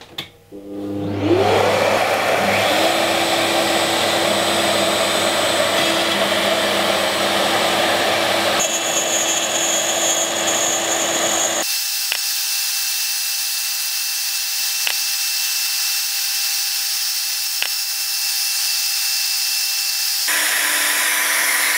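A vacuum used for dust extraction is switched on and spins up with a rising whine, then runs steadily together with the Shaper Origin handheld CNC router's spindle as it mills a shallow contour into hardwood. About halfway through the sound abruptly turns thinner, with a few light clicks, and the fuller machine noise returns near the end.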